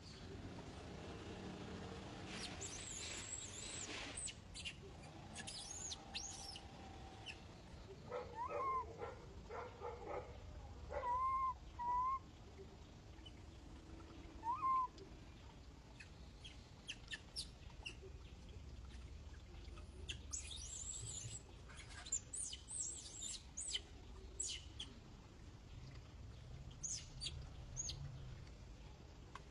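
Baby macaque's short squeaky calls, a handful of loud rise-and-fall squeaks bunched in the middle, along with thin very high chirps before and after.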